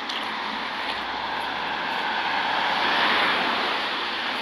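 A vehicle passing by, its noise swelling to its loudest about three seconds in and then easing off.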